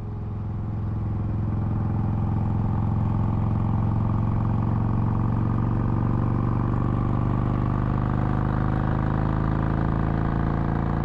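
Motorcycle engine running under way at a steady cruising speed, its pitch creeping slowly upward as it gathers a little speed. The sound fades in over the first couple of seconds, then holds steady.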